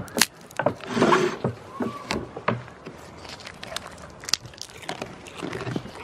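Goats nosing and nibbling food scraps off a wooden tabletop right at the microphone: a string of sharp knocks and taps, with a louder rustling scuffle about a second in.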